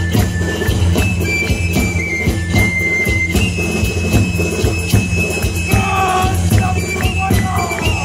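Live Ecuadorian popular-music band playing a tonada: a steady drum and bass beat under high held notes from a pingullo, the Andean three-hole pipe. A lower, wavering melody line joins about six seconds in.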